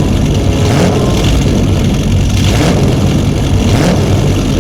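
A motor running loudly and steadily, with a deep hum under a hiss.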